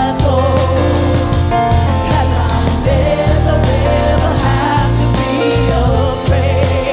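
Gospel worship band playing with bass, drums and sustained keys, with wordless or ad-lib singing over the top.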